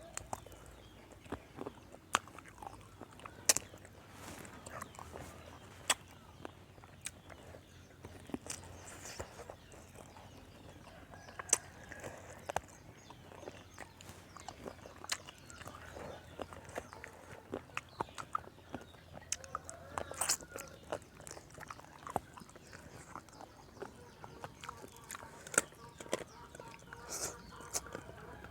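Someone eating close to the microphone: irregular chewing, with sharp clicks and crunches scattered unevenly throughout.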